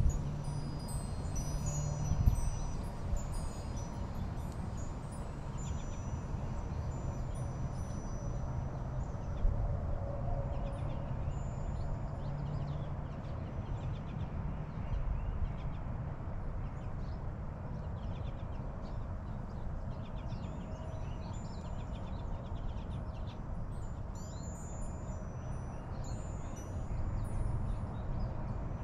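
Backyard ambience: a steady wind-like noise, with scattered high, clear ringing tones at several pitches in the first few seconds and again near the end.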